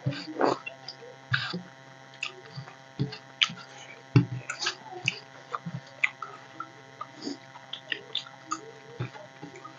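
Close mouth sounds of two people eating rice and curry by hand: irregular wet smacks and chewing clicks, with fingers working rice on steel plates. A faint steady electrical hum runs underneath.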